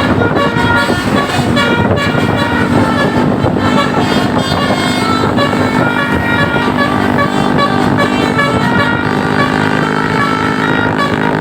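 Bus 'telolet' musical air horn (Basuri type) playing a quick melody of short, changing notes, over a steady low drone.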